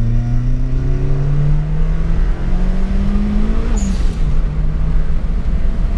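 Turbocharged 16-valve engine in a VW Polo G40 accelerating hard, heard from inside the cabin. The engine note rises steadily for almost four seconds, then drops at a gear change with a short hiss from the turbo's blow-off valve, and it pulls on in the next gear.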